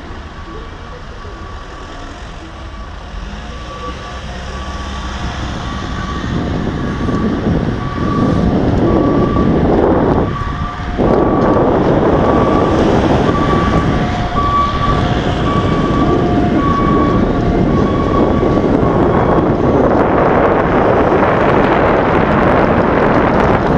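Rushing wind and road noise on a moving microphone over city traffic, growing from a low background to a loud steady rush in the first eight seconds. A faint squeak repeats at a steady pace underneath.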